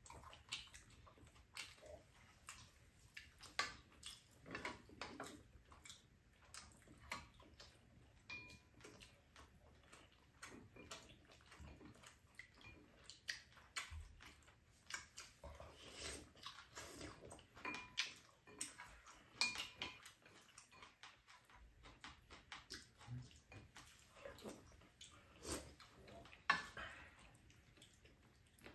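Quiet, irregular clinks, taps and scrapes of spoons and chopsticks against bowls and a frying pan during a meal, a few of them with a short ringing ding.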